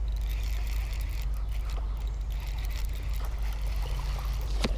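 Steady low rumble on a body-worn camera's microphone while a bass is reeled in, with one sharp click near the end.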